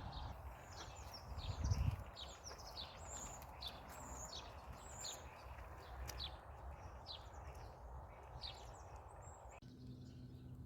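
Songbirds chirping, a quick run of short notes that each slide downward in pitch. Near the end the background changes to a low steady hum.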